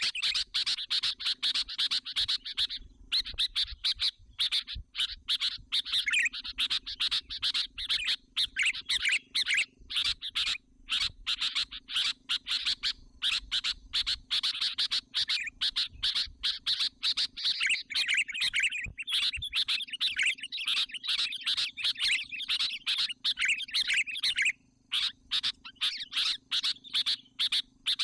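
Sooty-headed bulbul (kutilang) lure bird calling: a dense, rapid run of chattering chirps, broken only by brief pauses, used to draw in wild bulbuls.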